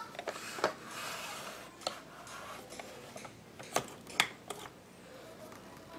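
Hard plastic parts of a Play-Doh Cake Making Station toy clicking and knocking together as they are handled and fitted, about five sharp clicks with a soft scraping rustle between the first few.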